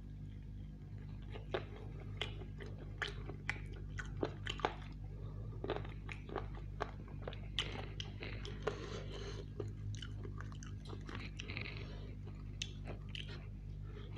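Close-up chewing, biting and crunching of roast chicken, with many sharp crisp clicks in the first half. Later comes a denser, rustling sound as the chicken skin and meat are torn apart by hand.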